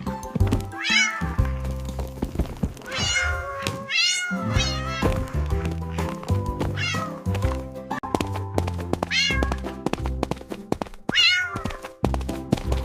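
Cat meowing about six times, in short calls that bend up and then fall in pitch, over background music with steady held notes and a low bass line, punctuated by frequent sharp clicks.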